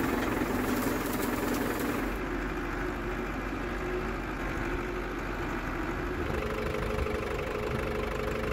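Farm tractor engine running steadily as the tractor hauls a loaded bin on its front loader; its tone shifts a little about two seconds in and again past the middle.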